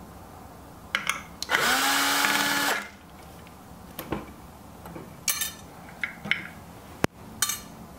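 Electric screwdriver running once for just over a second, spinning up and then holding a steady pitch as it backs out a Phillips screw holding the load cell in the Baratza Esatto's scale assembly. Several sharp clicks of the screws and plastic parts being handled come before and after it.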